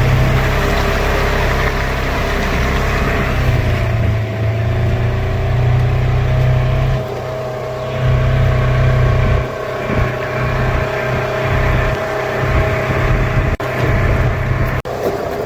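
A motor vehicle running: heavy low rumble with a steady whine, dipping briefly a few times.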